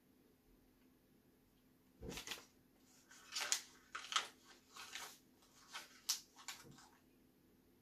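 A piece of printed paper crinkling and tearing as it is bitten and chewed, in a run of irregular crackles starting about two seconds in and dying away near the seven-second mark.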